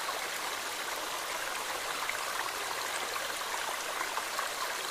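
Shallow running water, a steady stream-like rush with no distinct splashes.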